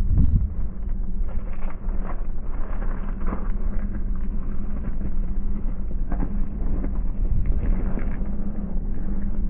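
Electric motor and gear drive of a 1/10 scale Boom Racing BRX02 RC crawler running with a steady hum, with scattered clicks and knocks throughout.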